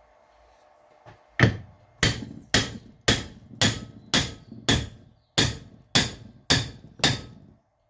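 About eleven hammer blows at roughly two a second, starting about a second and a half in, each a sharp strike with a short ring. They are knocking at the piston of a tractor loader's hydraulic cylinder, which is seized in its rusted bore.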